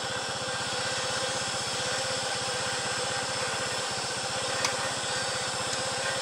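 Car engine idling steadily with a fast, even pulse. There is a single small click about four and a half seconds in.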